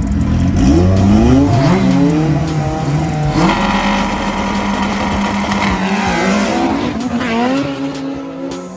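Two street-race cars, a K24-engined Integra and a turbocharged 4G63 Mirage, revving hard at the start line and then accelerating away, engine pitch climbing and dropping again and again. The sound fades near the end as the cars pull off.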